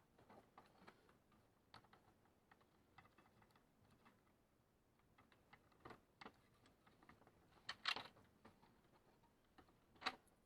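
Faint plastic clicks and taps of parts being handled and fitted, as a scanning bar is put into a printer's flatbed scanner unit, with a couple of louder clacks about 8 and 10 seconds in.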